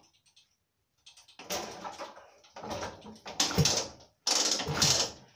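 BSA Bantam D7 motorcycle being rocked by hand on its centre stand, giving irregular clattering and clunking from the frame and fittings as the newly bolted-in engine is shown to be secure. The rattling starts about a second in and grows louder towards the end.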